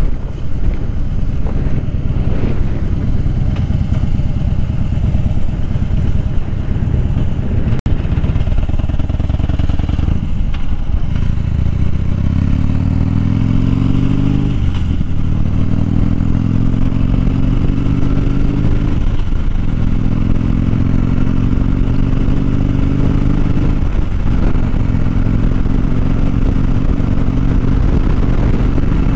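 2014 Harley-Davidson Dyna Fat Bob's V-twin engine running at road speed under wind rush. From about ten seconds in it pulls harder, its pitch climbing, dropping back at each of three upshifts, and climbing again.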